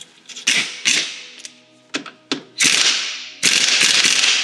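Hand ratchet and socket tightening a gearbox mount bolt: a few sharp metallic clicks, then two quick runs of rapid ratchet clicking about two and a half and three and a half seconds in. Faint background music underneath.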